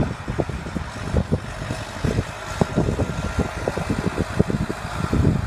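John Deere 5725 tractor's diesel engine running under load while pulling a plough, with uneven low thumps throughout.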